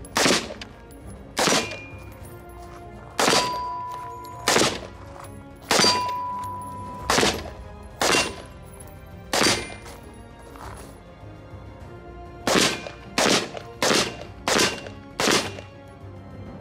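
AR-15 rifle fired semi-automatically, about fourteen shots at uneven spacing, ending in a quick string of five in about three seconds. A ringing tone hangs on for about a second after two of the shots.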